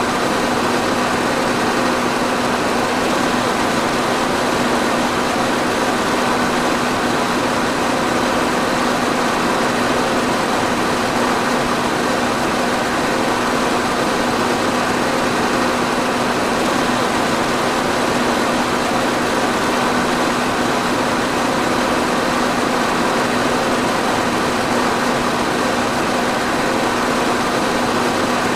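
Electric fan running steadily: an even rush of moving air with a constant motor hum underneath.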